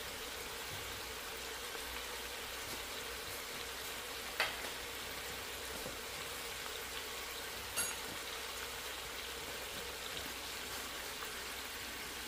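Food sizzling steadily in a cooking pot, with two short clicks about four and eight seconds in.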